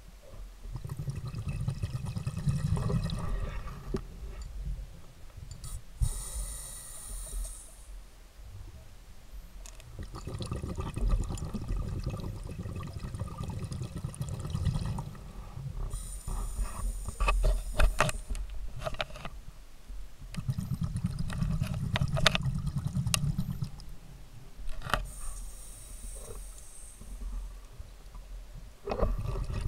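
Scuba diver breathing underwater through a regulator: a hiss on each inhale alternating with a bubbling rumble on each longer exhale, about three slow breaths. A few sharp clicks come near the middle.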